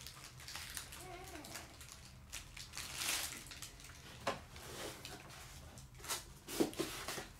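Quiet rustling and scraping of packaging with a few light knocks, the loudest near the end, as a statue's base is taken out of its box.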